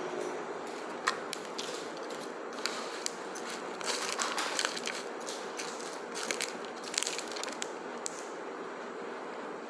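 Eating sounds: a plastic fork scraping and clicking against an aluminium foil takeaway container, with close-up chewing. A scatter of sharp clicks and short crunches, busiest about four to five seconds in and again around seven seconds.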